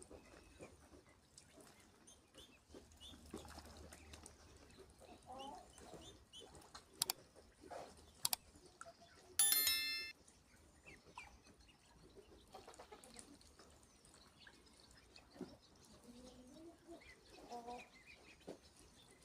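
Poultry calling softly now and then, with two sharp clicks about seven and eight seconds in and one loud, short, high-pitched call about halfway through.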